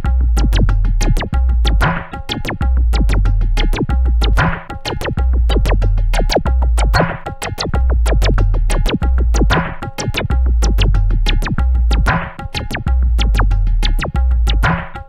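Electronic ambient music from a synth and drum machine: long deep bass notes, fast steady ticks, and a noisy hit about every two and a half seconds over a steady held synth tone.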